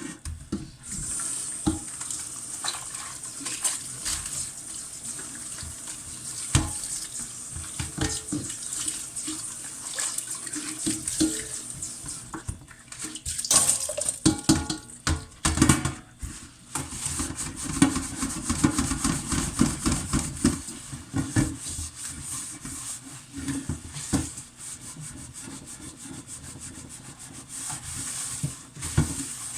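Pots being washed in a kitchen sink under a running tap: steady water hiss with repeated knocks and clatter of the pots, busiest about halfway through.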